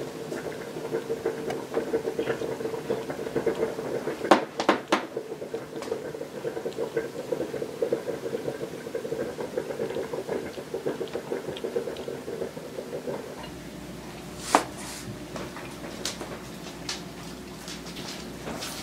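Domestic cat purring steadily and continuously, with two sharp knocks about four seconds in. The purring stops about thirteen seconds in, leaving a louder knock and a few faint clicks over room noise.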